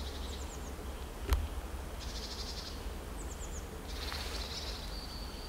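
Small songbirds singing in woodland: high, thin phrases of quick falling chirps and short trills repeating every second or two. There is a single sharp click about a second in, and a low steady rumble underneath.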